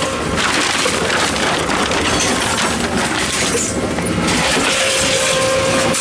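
Plastic bottles crinkling and crackling as they are handled and fed into a Tomra T-63 reverse vending machine. The machine's motor hum, a steady tone, fades at the start and comes back about four and a half seconds in.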